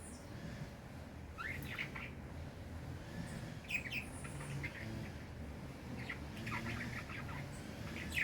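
Songbirds chirping in short rising and falling calls, coming in clusters every couple of seconds, with thin high notes between them, over a steady low rumble.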